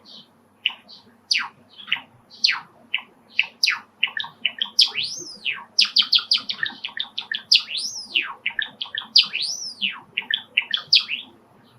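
Male Java sparrow singing its song: a fast run of clicks and short falling notes, with three rising-and-falling whistled notes woven in through the middle and later part.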